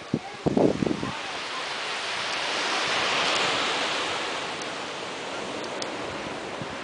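Small sea waves breaking and washing up a sandy beach, the surf swelling to a peak about three seconds in and then easing off. A brief loud vocal sound comes just before the surf builds.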